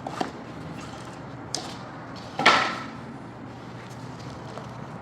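Pieces of a cut laminate floor plank being pried loose and handled: a few light clicks, then one louder knock with a short scrape about two and a half seconds in.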